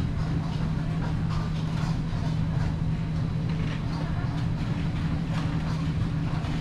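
Commercial wok stove burner giving a steady low rumble with a constant hum, while metal ladles scrape and clank irregularly against steel woks as egg fried rice and udon are stir-fried and sizzle.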